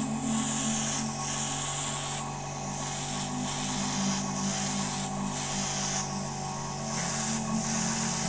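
Airbrush spraying in short repeated strokes: a hiss that breaks off briefly about once a second as the trigger is worked, over a steady low hum.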